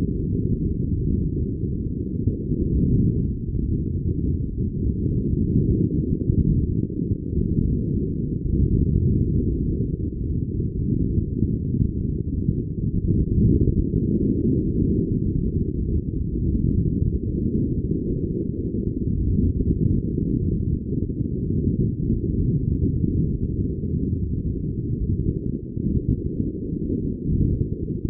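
Steady, muffled low rumble of wind and water noise on the microphone of a camera aboard a racing sailboat, rising and falling a little in gusts with nothing heard above a dull low band.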